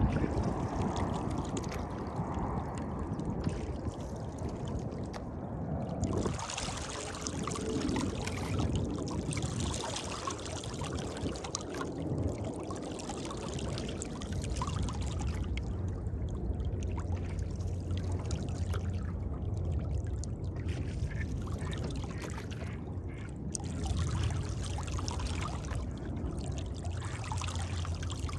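Water splashing and trickling along a wooden rowboat's hull and off the oar blades as it is rowed, swelling and fading every few seconds with the oar strokes.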